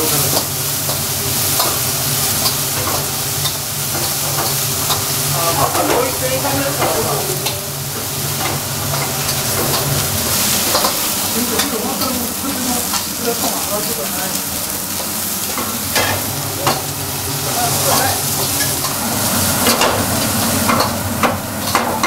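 Meat and vegetables stir-frying in woks over gas burners: a steady sizzling hiss with frequent clicks and scrapes of chopsticks against the woks.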